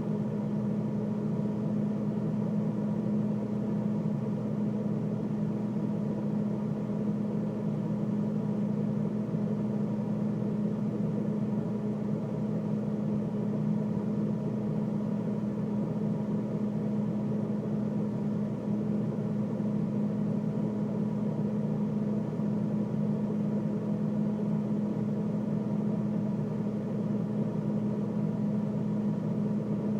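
Freezer running: a steady, unchanging mechanical hum with a strong low tone.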